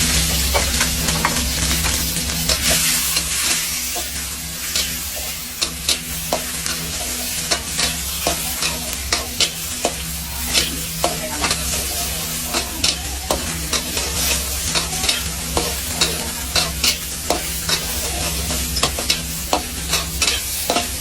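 Stir-frying in an iron wok: food sizzling with a steady hiss, punctuated by frequent sharp clacks and scrapes of a cooking utensil against the wok, over a steady low hum.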